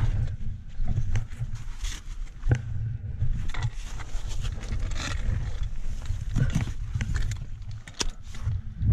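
Ice axe and crampons scraping and knocking on snow-covered granite during mixed climbing, with a handful of sharp strikes spread through, over a low, uneven rumble.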